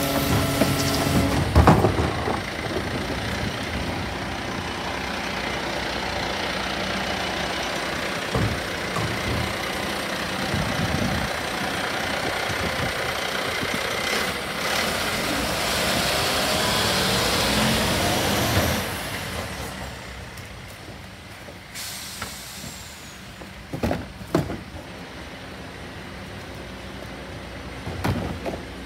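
Bucher rear-loader garbage truck running its bin lifter and compactor: a loud, steady mechanical noise that eases off about two-thirds of the way in. After that come a few sharp knocks as wheelie bins are handled.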